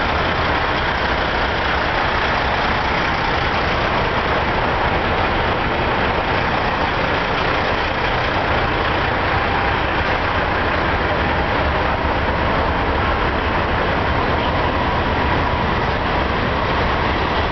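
Heavy diesel truck engines idling steadily, an unchanging low drone under an even wash of noise.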